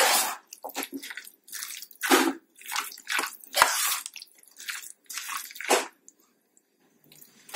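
A steel spoon stirring thick set custard and chopped fruit in a steel pot: wet squelching and scraping strokes about twice a second, stopping about six seconds in.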